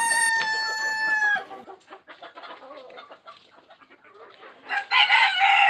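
Rooster crowing: a long held note that ends about a second and a half in, then quieter clucking, and another loud, harsh call near the end.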